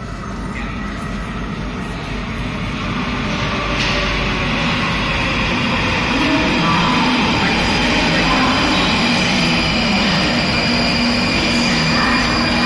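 A London Underground Northern line 1995 Stock train coming out of the tunnel and pulling into the station, its rumble growing steadily louder over the first half. From about halfway, a wavering whine joins the rumble as the train runs in alongside the platform.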